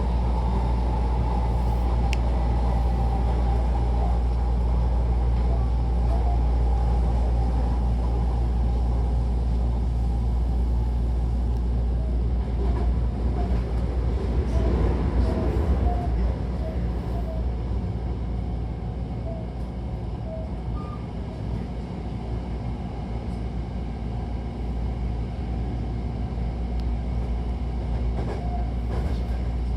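Hankyu electric commuter train running between stations, heard from inside the car: a steady low rumble of wheels on rails, with a motor whine that falls slowly in pitch over the first several seconds. The rumble swells louder briefly about halfway through.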